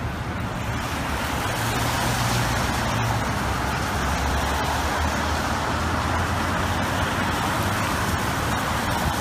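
Steady city street traffic noise: an even hiss of passing vehicles over a continuous low engine rumble.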